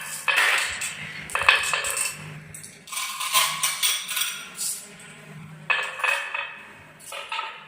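Marbles rolling and clattering down a wooden marble run: a low rolling rumble broken by repeated sharp clicks and clinks with short ringing tones.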